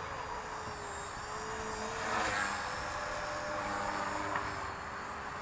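HK-450 PRO V2 electric RC helicopter in flight: the whine of its motor and rotor blades, its pitch sliding up and down as it manoeuvres, a little louder about two seconds in.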